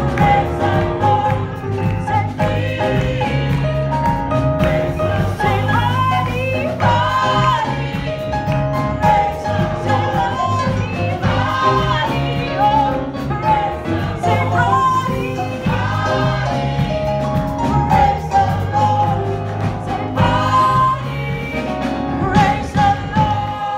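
Gospel choir of men and women singing together, voices sliding between held notes over sustained low bass notes.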